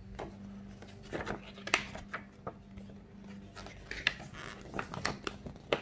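Folded paper poster crackling and rustling as it is unfolded and opened out by hand, in irregular sharp crinkles.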